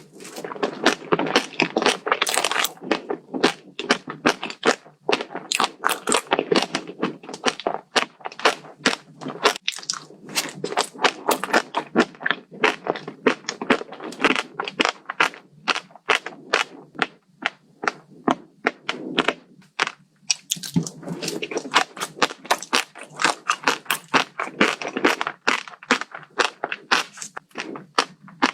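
Close-miked biting and chewing of a crunchy dessert: a fast, continuous run of sharp crunches and crackles, broken by a few brief pauses.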